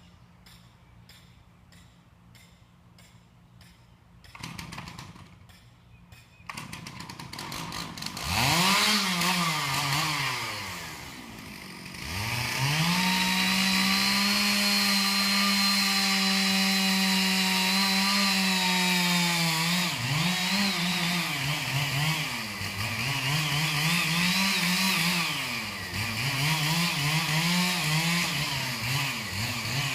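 Chainsaw revving up about 8 seconds in and easing off, then running steady at full throttle for about eight seconds. The steady stretch is the felling cut through the trunk of a leaning tree. Afterwards the saw's revs rise and fall repeatedly.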